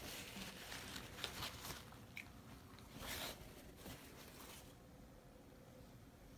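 Faint rustling and crinkling of a drawstring cloth snake bag being handled and opened by hand: a few short scuffs in the first half and one more about three seconds in, then it goes nearly quiet.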